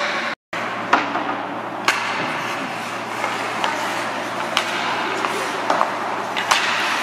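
Ice hockey rink sound during a youth game: a steady din of the arena with sharp clacks of sticks and puck about once a second. The sound cuts out completely for a moment near the start.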